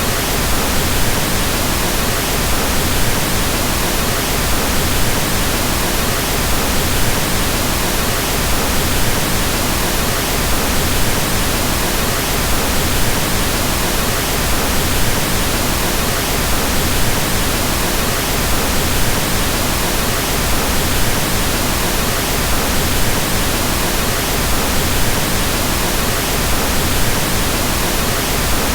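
Pink noise: a steady, even hiss spread across all pitches, fuller in the lows, unchanging throughout.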